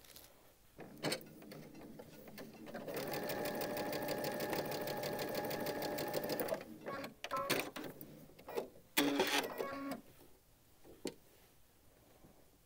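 Baby Lock Destiny sewing machine stitching a seam through pieces of quilting cotton. It comes up to speed about three seconds in, runs at a steady fast stitch for about four seconds, then stops. A few short whirs and clicks follow.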